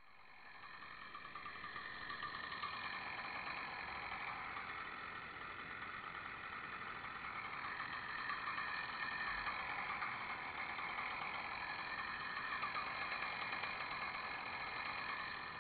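An engine running steadily, rising a little in level over the first couple of seconds.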